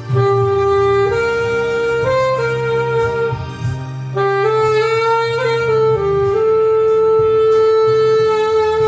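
Alto saxophone playing a slow, sustained melody over a karaoke backing track: two phrases with a short break between them, the second ending on a long held note.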